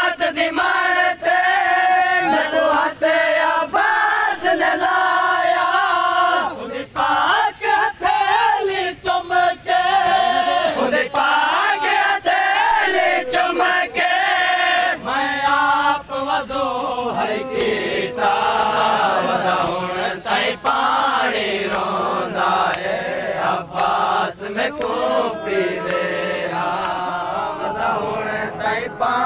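Crowd of men chanting a noha, a Shia lament, together in a long sung refrain, with regular sharp slaps of matam chest-beating.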